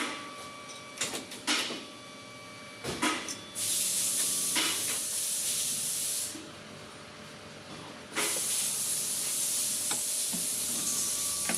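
Two long bursts of hissing spray, the first lasting almost three seconds and the second starting about eight seconds in, after a few short clicks and knocks.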